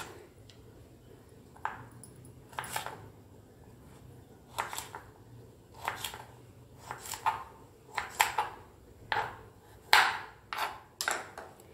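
Kitchen knife chopping cluster beans on a wooden cutting board: about a dozen separate chops at an uneven pace, coming closer together in the second half.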